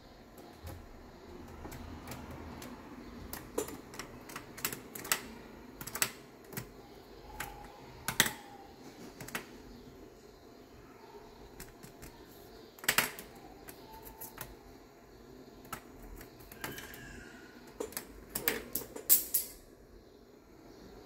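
Irregular sharp taps and clicks of a magpie pecking and stepping about on a wooden desk among paper and a pen, with a quick flurry of taps near the end.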